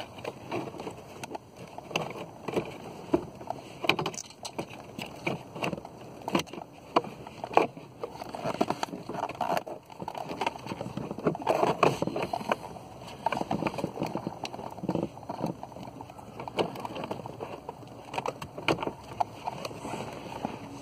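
Hands working a car's blower motor back into its housing under the dash: irregular clicks, knocks and plastic rustling as the motor is pushed and shifted into a tight opening.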